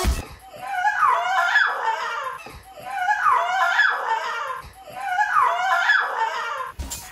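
A young woman laughing hard in high-pitched, breathy fits: three bouts of laughter of about two seconds each.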